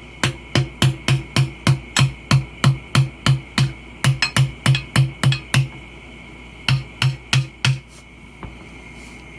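Hammering on a screwdriver wedged between the tire bead and the rim, working the bead loose to break down the tire by hand. It is a steady run of sharp metallic strikes, about three a second for some five seconds, then after a short pause four more.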